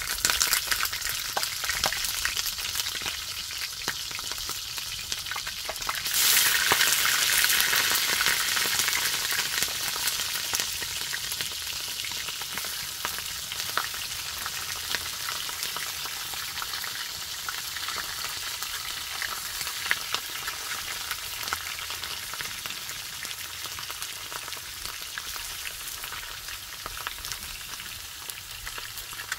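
Food frying in hot oil in a pan: a steady sizzle that jumps louder about six seconds in, then slowly dies down, with small crackles throughout.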